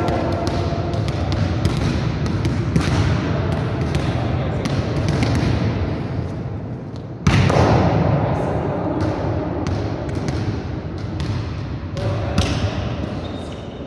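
Balls being hit and bouncing on the hard floor of a large, echoing sports hall, a rapid scatter of thuds, with one loud hit about seven seconds in.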